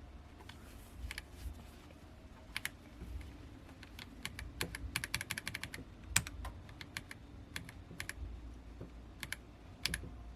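Keys of a Royal Kludge RK-H81 mechanical keyboard with brown switches being pressed: scattered single keystrokes, with a quick run of presses about five seconds in.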